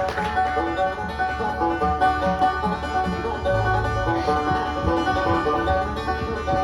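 Bluegrass banjo picking a quick, even run of plucked notes, the lead of an instrumental tune.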